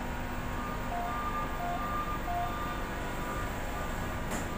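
Steady hum inside a Doha Metro train car. A faint beeping alternates between two pitches from about half a second in to about two and a half seconds, and there is a light click near the end.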